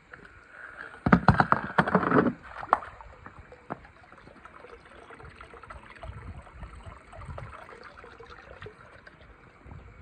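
A plastic toy train engine clatters and splashes into a swimming pool about a second in, a short loud burst, followed by quieter sloshing and gurgling of the pool water.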